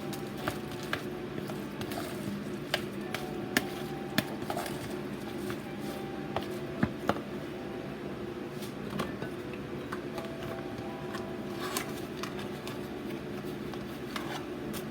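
Kitchen handling sounds: irregular clinks and knocks of utensils and dishes over a steady low hum.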